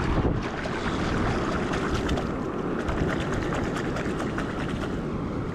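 Wind buffeting the microphone as a steady low rumble, with surf washing on the shore behind it.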